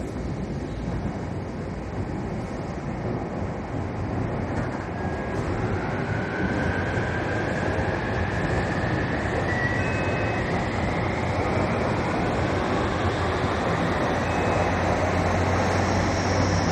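Train running, heard from inside the passenger car: a steady rumble of wheels and running noise, with a thin motor whine that rises in pitch through the middle and overall sound growing gradually louder.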